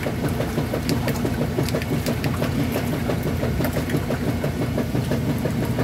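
Top-loading washing machine running with hot water in its tub during a machine-cleaning wash: a steady low hum with a rapid, even pulsing, about four a second.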